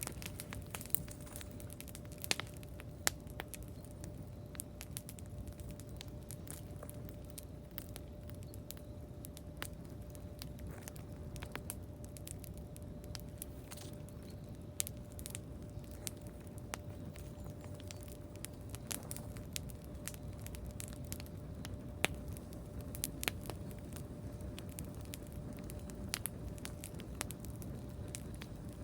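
Wood campfire crackling: irregular sharp pops and snaps over a low steady rumble, with a faint steady tone underneath.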